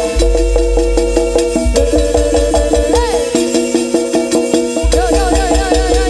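Jaranan gamelan music played loud through a sound system: repeating metal-keyed notes, a high melody line that swoops up and down, and heavy bass drumming.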